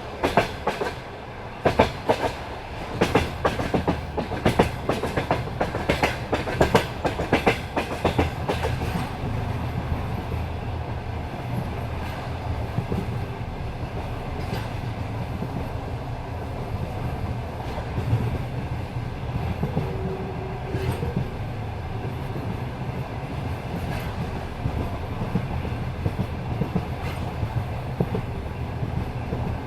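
Passenger train wheels clattering over rail joints while running. Sharp clicks come thick and loud for the first nine seconds or so, then give way to a steadier rolling rumble with only scattered clicks.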